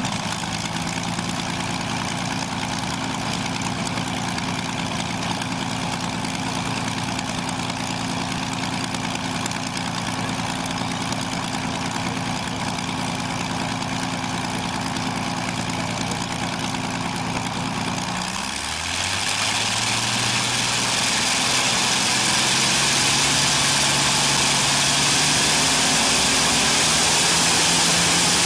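Continental IV-1430 inverted V-12 aircraft engine running on a test stand through short open exhaust stacks, with a steady note. About two-thirds of the way through, the note drops and then slowly climbs, and it grows louder with more hiss.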